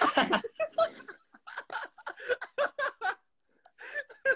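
Men laughing in short, choppy bursts, mixed with a little talk.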